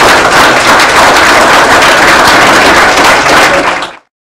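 Audience applauding, a dense, steady clatter of many hands clapping that cuts off abruptly near the end.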